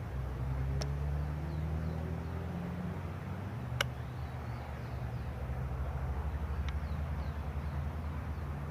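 Steady low hum of an engine running, like a nearby vehicle, with a few light clicks.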